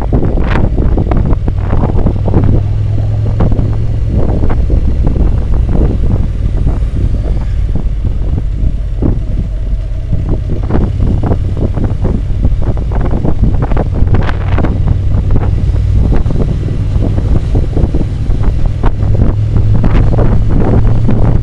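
Wind buffeting the microphone on a moving Ducati motorcycle, over the steady low drone of its engine. It eases a little around the middle, then builds again.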